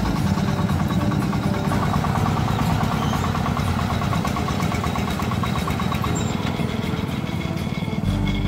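A two-wheel hand tractor's single-cylinder diesel engine runs steadily with a fast, even beat while it pulls a loaded trailer.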